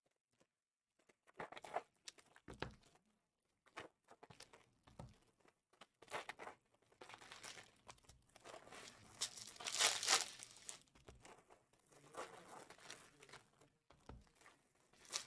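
Foil wrappers of trading card packs being torn open and crinkled by hand, in irregular bursts of rustling, loudest about ten seconds in.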